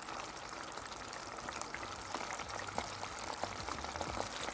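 Breaded chicken cutlets deep-frying in a pot of hot oil: a steady sizzle with many small crackles and pops.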